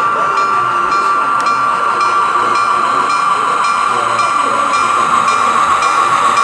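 Model train running on a layout: a steady, high-pitched whine over a hiss, with faint regular ticking about two or three times a second.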